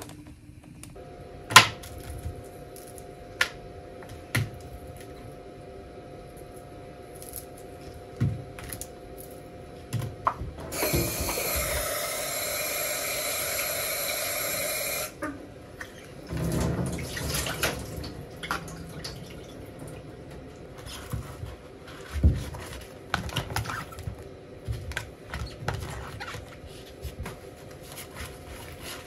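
Kitchen tap running into the sink for about four seconds near the middle while peeled shrimp are rinsed under it, followed by a short stretch of splashing. Scattered light clicks and knocks from handling the shrimp and containers come before and after, over a faint steady hum.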